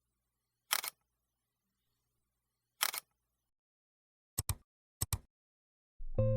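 Camera shutter clicks in dead silence: four releases a second or two apart, the last two each a quick double click. Guitar music comes in near the end.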